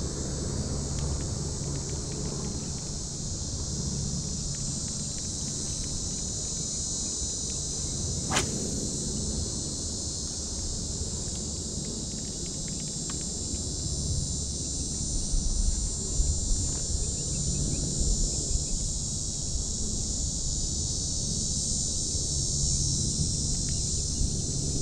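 Steady high-pitched chorus of insects over a low rumble, with a single sharp click about eight seconds in.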